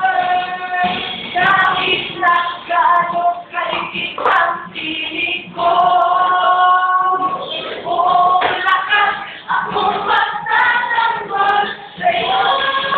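A girl singing a song in Tagalog, with long held notes and short pauses between phrases.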